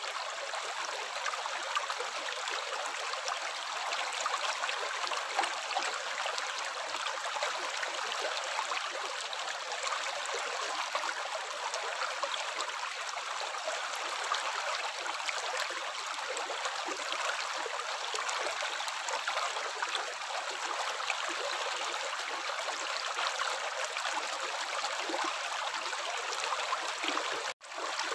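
Steady running water, a continuous splashing trickle with no single drops standing out. It cuts out for a split second near the end, then carries on.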